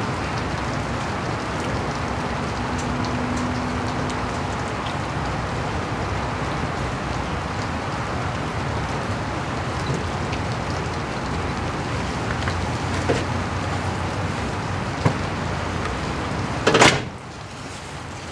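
Steady rain noise. Near the end a single loud knock, after which the rain sounds quieter.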